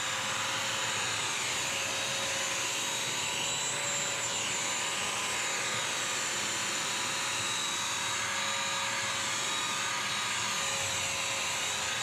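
BISSELL CrossWave wet/dry vacuum-mop running steadily, a motor whine over the noise of suction and the spinning brush roll, its pitch wavering slightly as it is pushed over a hardwood floor picking up a wet spill.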